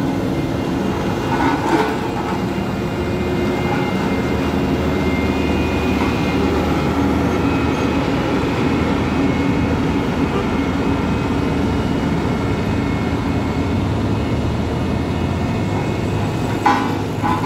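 Heavy truck's diesel engine running steadily under load on a steep climb, with two brief louder sounds, one about two seconds in and one near the end.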